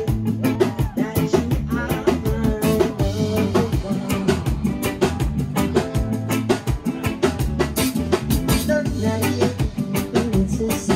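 Band music with a drum kit keeping a steady beat, bass guitar and singing.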